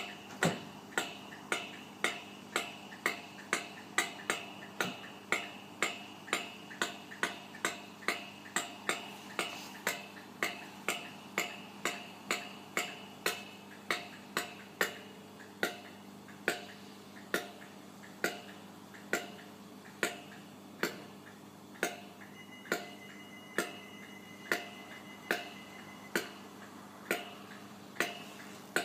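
Steady electrical hum from a stationary Class 318 electric multiple unit, under a regular sharp clicking that comes about twice a second at first and slows to just over once a second.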